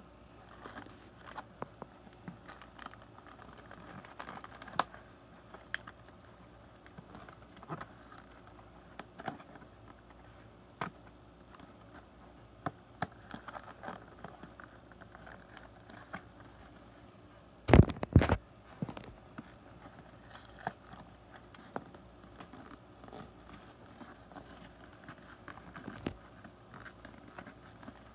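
Small cardboard LEGO set box being handled and picked open by hand: scattered scratches, taps and crinkles of fingers on the cardboard flap and seal. About two-thirds of the way through come two loud knocks close together.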